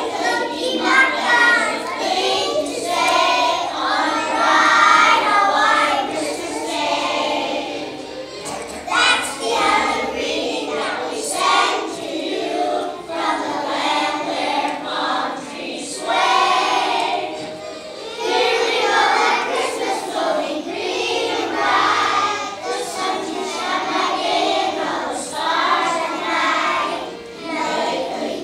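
A children's choir singing together.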